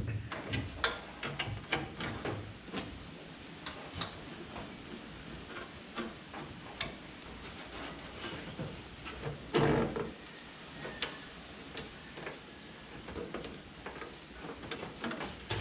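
Small scattered clicks and taps of pop rivets and metal parts being handled and pushed into a bilge pump mount bracket, with one louder knock about ten seconds in.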